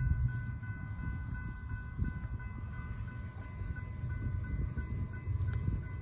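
Railroad grade-crossing warning bell ringing in an even, repeating ding over a low rumble, while the crossing signals are activated for an approaching train.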